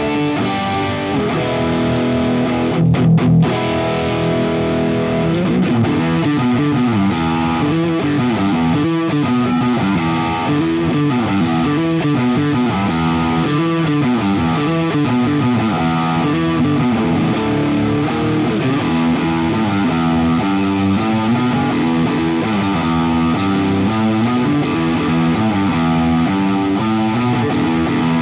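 Distorted electric guitar, a Washburn N24 in the middle pickup position (DiMarzio DP156 Humbucker From Hell wired in series at the neck, with a Bill Lawrence L500XL at the bridge), played through a Fractal Audio AX8 Friedman HBE high-gain preset. It holds a few chords at first, then plays a busy run of fast single-note lines.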